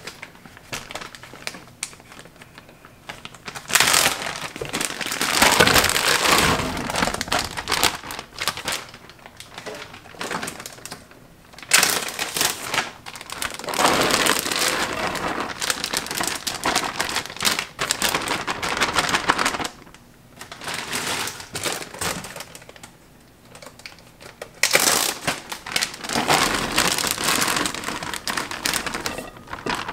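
Plastic zip-top bags crinkling as sliced cucumbers, chopped onions and diced peppers are shaken out of them into a large bowl, in three long stretches with quieter rustling between.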